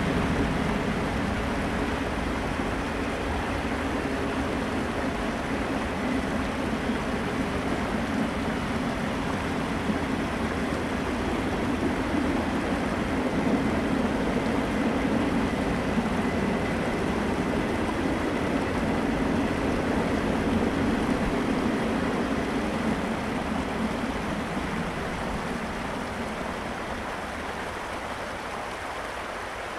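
Norfolk Southern freight train rolling past on the track above a creek culvert: a steady rumble of wheels on rail that fades away over the last few seconds as the end of the train passes, leaving the rush of the creek's water.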